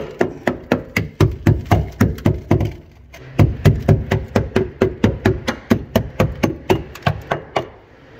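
Small hammer tapping rapidly on a rusted car body panel, about four strikes a second, with a short pause about three seconds in. The panel is being sounded out for rot: the steel is rusted through, with holes already in it.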